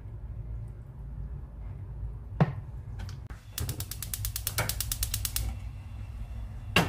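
Gas cooktop burner's igniter clicking rapidly, about ten clicks a second for a couple of seconds, as the burner is lit. A knock comes before it, and a loud thump near the end as the pot is set down on the burner grate.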